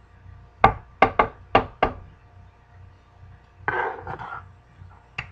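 Five sharp knocks in quick succession, like a utensil or jar rapped against a container, then a short scraping rustle about three and a half seconds in and a single click near the end.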